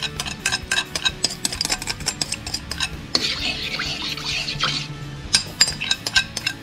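A metal spoon repeatedly clinking and scraping against a china plate as sauce is scraped off it into a hot wok. About three seconds in, the spoon stirs the sauce in the wok for over a second with a hiss.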